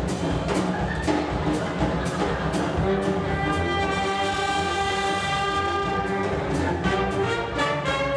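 Big-band jazz ensemble playing, with drums keeping a steady beat of about two strokes a second. The horns hold a long chord from about three seconds in, then break into short punched notes near the end.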